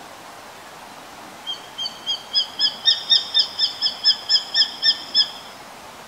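Japanese sparrowhawk calling: a rapid series of about fifteen sharp notes, each with a slight upward hook, about four a second, growing louder over the first few. It starts about a second and a half in.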